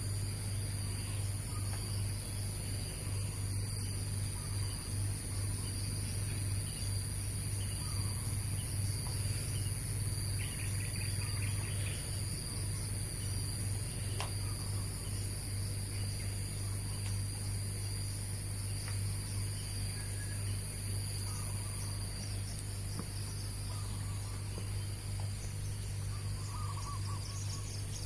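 Zebra dove (perkutut) cooing now and then over steady, high-pitched insect trilling, with a steady low hum underneath.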